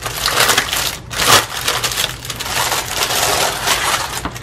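Clear plastic packaging crinkling and rustling as a fabric book cover is handled on top of it, in uneven swells with one louder crackle about a second in.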